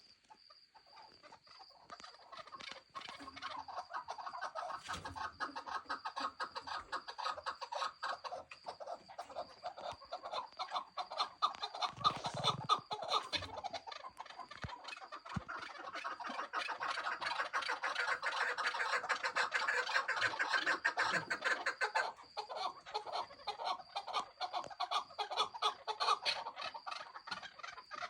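A group of young chukar partridge chicks calling, many rapid short peeps and chirps overlapping into a continuous chatter that grows louder midway and eases near the end.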